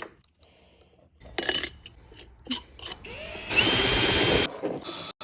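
Handling clicks and knocks, then a small handheld power tool motor that spins up with a rising whine, runs steadily for about a second, and stops.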